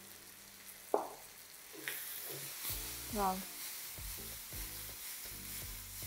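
Chicken in black bean sauce sizzling in a frying pan as it is stir-fried and tossed, with a sharp knock about a second in and the sizzle growing from about two seconds. Background music with a pulsing beat comes in around the middle.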